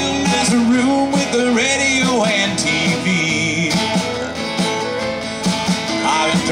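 Live western swing band playing an instrumental break with no vocals: fiddle and pedal steel guitar carry sliding melody lines over acoustic guitar, upright bass and drums.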